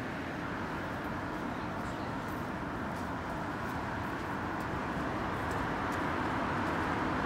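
Steady outdoor ambient noise on a seafront: a low rumbling wash with no distinct events, slowly growing louder.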